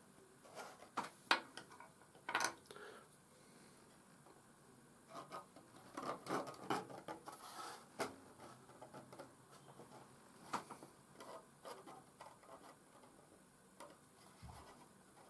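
Quiet, scattered small clicks, taps and rubbing as fingers handle and press laser-cut MDF parts into place, in irregular clusters.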